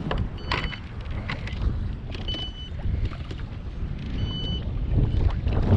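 Wind rumbling on the microphone aboard a kayak, with scattered knocks and a short, high electronic beep about every two seconds, three in all.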